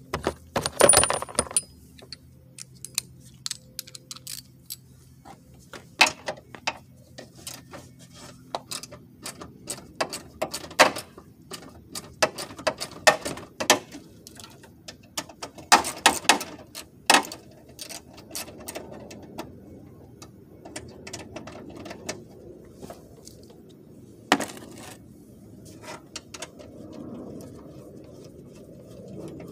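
Socket ratchet and metal tools clicking and clinking irregularly against bolts and sheet metal while fasteners behind a car's front bumper are worked loose.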